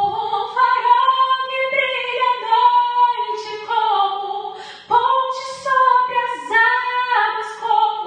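A woman singing a cappella, two long held phrases with a short break about five seconds in.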